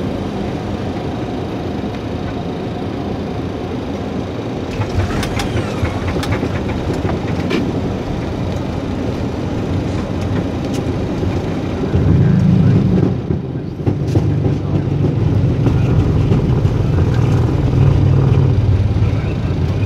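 Boeing 737 cockpit noise on landing: steady airflow and engine noise, with a cluster of rattles and knocks about five seconds in as the wheels meet the runway. From about twelve seconds in a louder, deeper engine rumble sets in and holds as the jet rolls down the runway.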